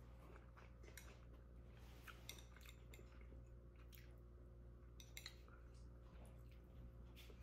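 Faint, scattered clicks of chopsticks against a small ceramic plate as food is picked up and wrapped, over a low steady hum.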